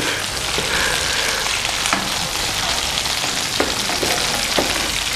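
Potato-salad croquettes frying in hot oil in a pan: a steady sizzle, with a few light clicks as a spoon turns them.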